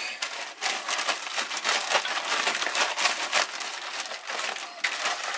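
Plastic zip-top bag crinkling and rustling in an irregular run as it is shaken by hand, tossing razor clams in a coating of crushed saltines and flour.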